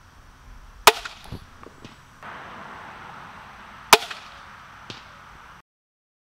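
Two shots from a Ravin R26 crossbow, each a sharp snap of the released string and limbs, about three seconds apart.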